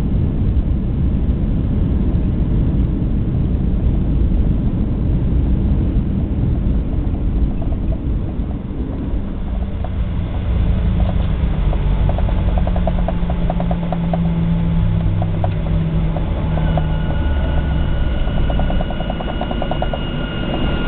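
Airliner cabin noise on the landing rollout: a loud rumble of engines and wheels on the runway that eases as the plane slows. It gives way to a steady engine hum, a fast rattle, and a high whine that comes in near the end.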